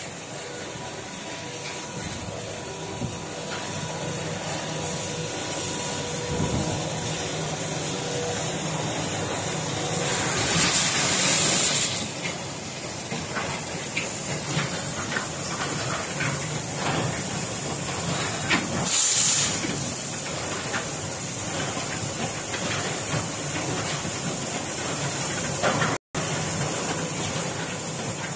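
Concrete batching plant running with its JS1500 mixer over a concrete mixer truck: a steady mechanical hiss and rumble, with louder hissing rushes about ten seconds in and again near nineteen seconds. The sound cuts out for an instant near the end.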